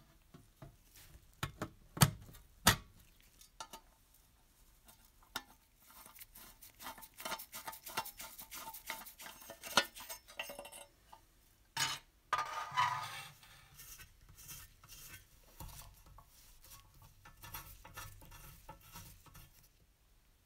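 Painted sheet-metal and brass parts of a toy steam engine clinking and knocking as they are handled and fitted together: two sharp knocks about two seconds in, a run of quick light clinks in the middle, and a few more knocks after that.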